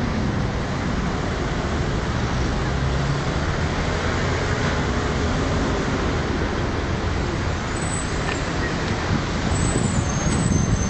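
Steady city traffic noise: the continuous hum and rush of cars and buses on the surrounding streets.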